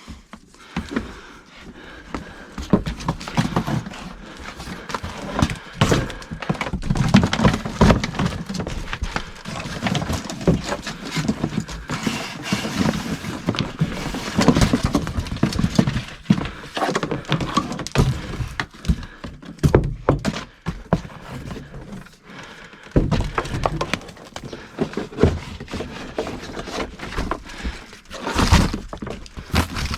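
Irregular knocks, thunks and rustling from electrical cable being handled and pulled through holes in the framing, with a couple of heavier thumps near the end.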